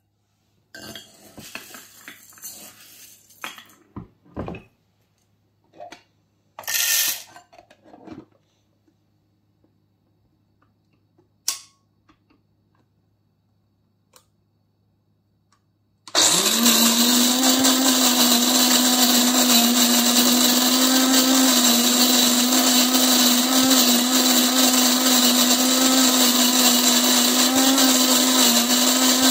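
Cuisinart DBM-8 Supreme Grind electric burr mill grinding whole coffee beans. After scattered clicks and rustles, the motor starts abruptly about sixteen seconds in and runs steadily with a constant hum under the grinding noise.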